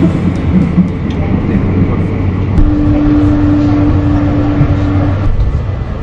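Passenger train in motion, heard from inside the carriage: a steady low rumble of wheels on the track. A steady hum comes in about two and a half seconds in and stops a little after the five-second mark.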